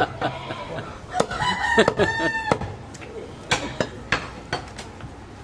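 A rooster crows once, a call of a little over a second that holds a steady pitch before cutting off. A few sharp knocks sound before and after it.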